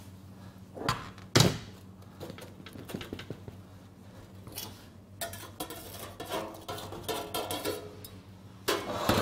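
Stainless steel baking tray set down upside-down on a wooden counter with a sharp knock about a second and a half in, as the baked ciabatta is turned out. Metal clatter and scraping follow, and a louder clatter comes near the end as the tray is lifted off the loaf.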